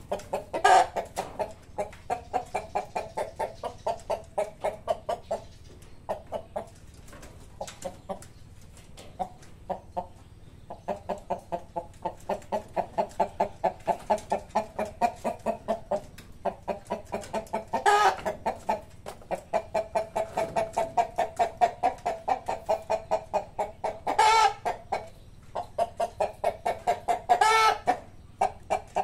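Chickens clucking in a quick, steady run of short clucks, about five a second, broken by a few louder, higher calls later on.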